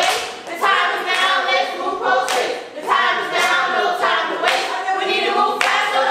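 A group of children singing in unison without accompaniment, with hands clapping together on the beat about once a second.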